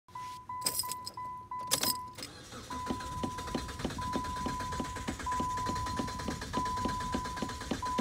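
Dodge car's dashboard warning chime, in a car that won't crank. It sounds as short quick beeps at first, then longer beeps of the same tone repeating. Under the longer beeps runs an even clicking of about three to four clicks a second, and two sharp clicks come in the first two seconds.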